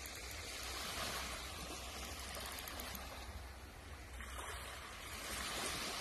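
Small waves washing up on a sandy beach, a steady wash of surf that swells a little about a second in and again near the end.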